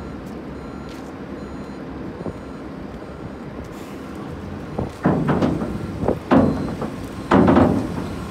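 Diesel terminal tractor running steadily as it tows a loaded roll trailer. In the second half there are several loud, rough bursts of noise.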